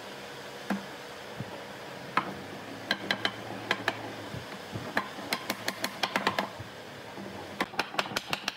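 Sharp wood-on-wood clicks and knocks, single at first and then in quick clusters of several a second, as loose wooden chair-seat slats are shifted by hand and tapped with a wooden mallet.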